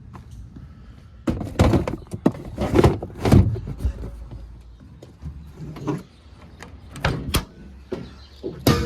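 A series of irregular knocks and clatters over a low steady hum; the hum stops about halfway through.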